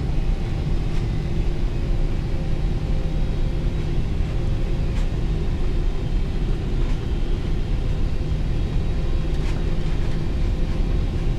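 Cabin noise of a Boeing 777-300ER airliner on final approach to landing: a steady low rumble of engines and rushing air, with a faint steady hum above it.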